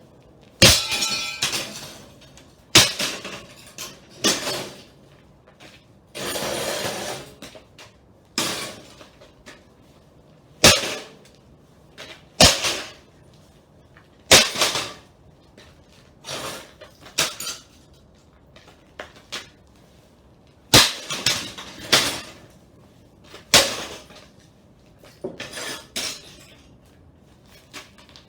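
Repeated hard blows smashing up a PC case, with broken tempered-glass shards clinking and rattling: about fifteen strikes at irregular intervals, and a longer scraping rattle about six seconds in.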